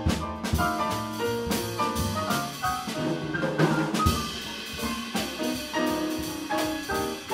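Live jazz piano trio playing: acoustic grand piano, upright double bass and drum kit, with many short piano notes over the bass and drums.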